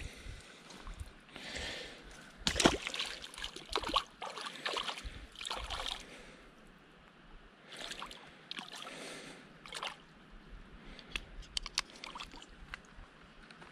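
Irregular splashing and sloshing of shallow water, with sharp clicks and knocks of handling close to the camera. It is busiest in the first half and quieter after about six seconds.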